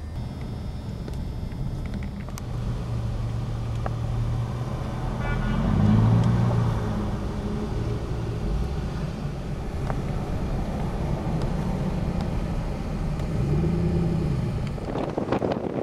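A car engine running, with steady road noise; the low engine note rises and falls a few times.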